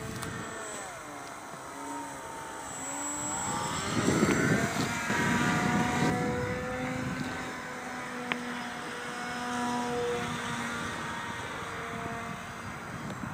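Radio-controlled model airplane flying overhead, its motor giving a pitched drone that slides up and down with throttle and as it passes, then holds a steady note. Gusts of wind noise on the microphone come and go.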